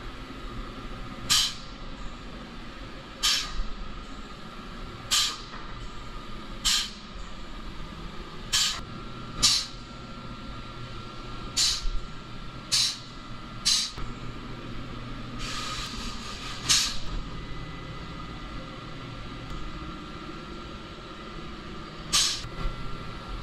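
Pneumatic adhesive dispensing gun hissing in short bursts of air, about a dozen of them a second or two apart, with one longer hiss a little past the middle, as structural adhesive is pushed from the cartridge. A faint steady hum sits underneath.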